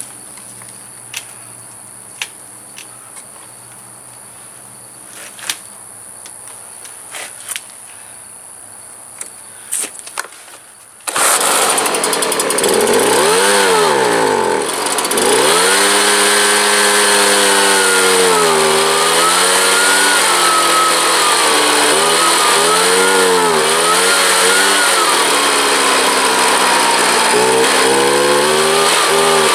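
Ryobi BP42 backpack leaf blower's two-stroke engine starting abruptly about eleven seconds in, after a stretch of faint clicks. It then runs loudly with its speed surging up and down, dipping sharply once soon after it catches. The uneven running is taken by the owner as a sign that the carburettor may need adjusting after long storage.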